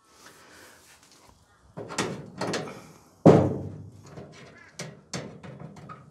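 Sheet-metal clothes dryer cabinet banging as a dent in its top edge is bent back out with pliers: a series of sharp metal bangs with a short ring, the loudest a little past three seconds in.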